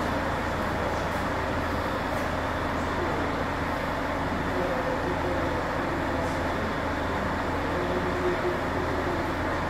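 A steady low mechanical drone with an even noise beneath it.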